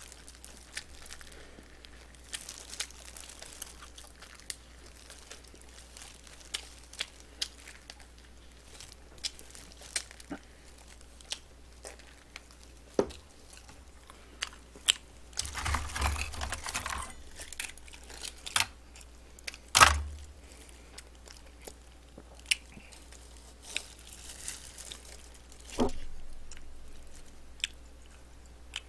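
A person eating close to the microphone: chewing and crunching on crispy glazed fried chicken, with scattered sharp clicks and a few short crinkling rustles.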